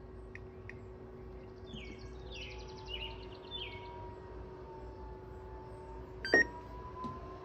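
A running pellet grill hums steadily. Two light clicks come from its control dial being turned just after the start. Birds chirp a couple of seconds in, a distant siren wails faintly, and a single sharp click comes about six seconds in.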